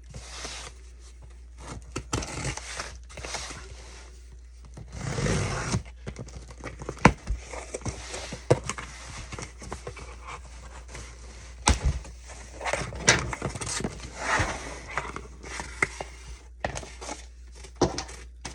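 A cardboard shipping box being opened and unpacked by hand: scraping and rustling of cardboard and crinkling of packaging, with irregular sharp taps and knocks, over a steady low hum.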